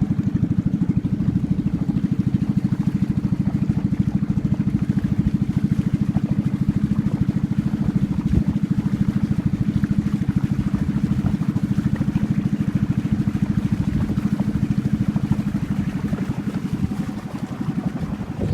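Small boat's engine running steadily at an even speed, with a rapid, regular pulse.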